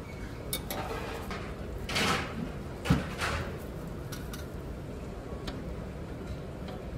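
The clear roll-top lid of a stainless buffet chafing dish is swung open: a short sliding rush, then a clunk about three seconds in. Light metallic clicks of serving tongs come before and after.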